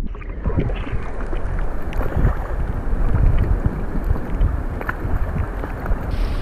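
Seawater sloshing and slapping around a camera held at the surface: a dense low rumble full of small splashes, with wind on the microphone.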